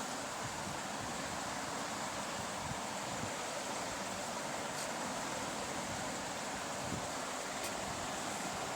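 Steady, even hiss of background room noise, with no clear event.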